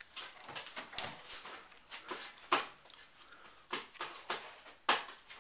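A baby's short excited shrieks while bouncing in a doorway jumper. There are about six sharp squeals, roughly one a second, the loudest about halfway through and near the end.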